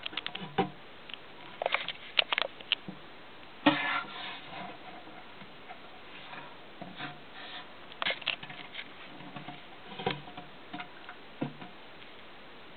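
Scattered sharp clicks and light taps in irregular clusters over a steady low hiss, the loudest a little under four seconds in.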